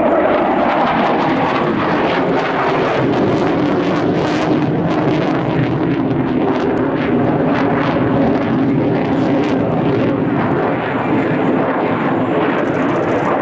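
Panavia Tornado's twin RB199 turbofan jet engines in flight, a loud steady rumble with sharp crackles running through it.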